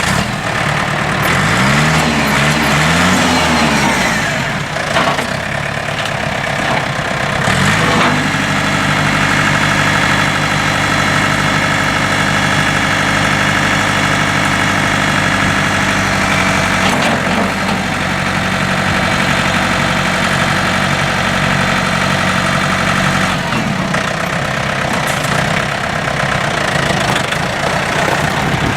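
John Deere 4500 tractor's four-cylinder Yanmar diesel engine running, revved up and down twice about two seconds in, then settling into a steady run with a couple of small changes in engine speed.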